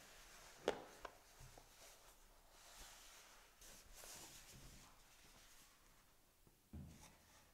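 Faint handling of cardboard packaging and a paper booklet: a sharp tap about a second in with a smaller one just after, soft sliding and rubbing of card in the middle, and a low thump near the end.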